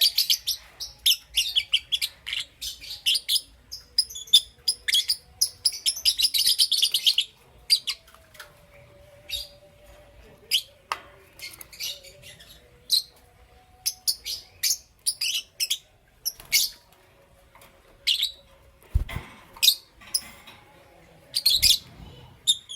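Lovebirds chirping: a dense run of rapid high chirps for the first several seconds, then scattered single chirps. A low thump comes about three-quarters of the way through.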